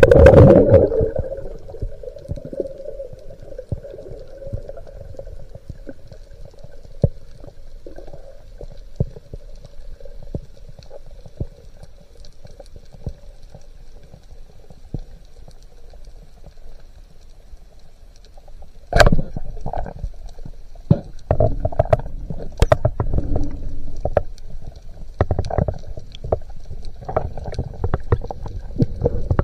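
Underwater sound picked up by a diver's camera: a low muffled rumble of water against the housing with scattered sharp clicks, a loud rush right at the start, and a louder, busier stretch of rumbling and clicking beginning about two-thirds of the way through.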